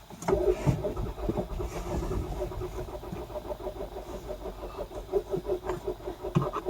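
Car engine running, with a steady low rumble and an even, fast pulsing throughout.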